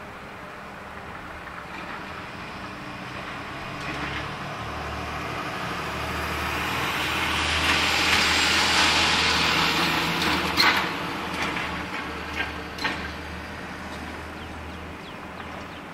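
A road vehicle passing by: its noise swells to a peak about halfway through and then fades, with a few sharp knocks just after the peak.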